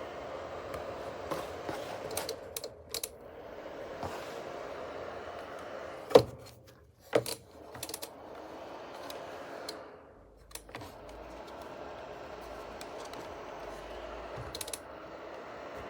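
Small ceramic fan heater's fan running with a steady whir, with a few sharp clicks and knocks on top; the two loudest come about six and seven seconds in. The whir drops away briefly around those knocks and again near ten seconds.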